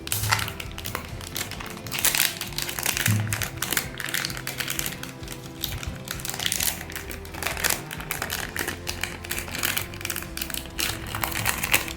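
Packaging crinkling and rustling in the hands as a cube's box is handled and opened, with a few soft thumps, over background music.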